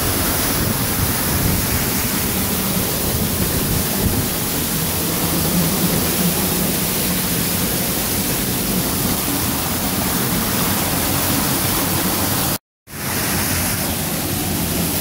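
Rain-swollen waterfall pouring and splashing close by, a steady loud rush of falling water. The sound cuts out for a split second near the end.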